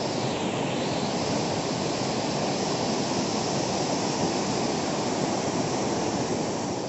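Swollen, muddy river in flood rushing through rapids: a steady, dense rush of churning water.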